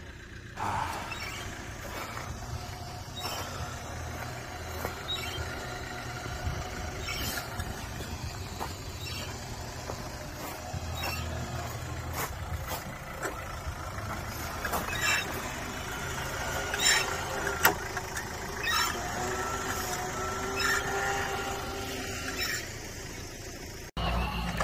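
Excavator working, its engine running under load with a wavering hydraulic or track squeal and scattered metal clanks.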